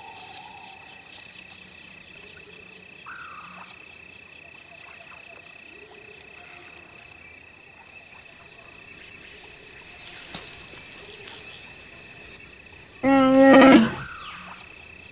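Steady chirring of insects, broken about two seconds before the end by a single loud Wookiee roar from Chewbacca, lasting about a second.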